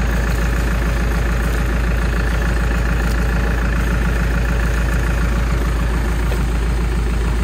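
An engine idling steadily, a constant low rumble with an even pulse that does not rise or fall.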